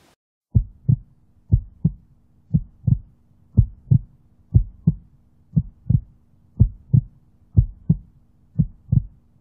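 Heartbeat sound effect: paired low thumps in a lub-dub rhythm, about one beat a second, nine beats over a faint steady low hum.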